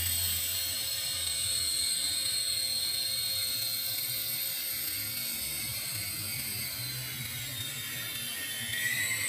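Small coaxial-rotor toy RC helicopter's electric motors and rotors whirring with a steady high whine. The pitch dips and rises again near the end as the throttle changes.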